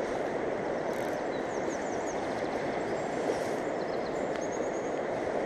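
Steady rush of a fast mountain river, an even wash of water noise with no change in level. A few faint high chirps sound over it about a second and a half in and again near the end.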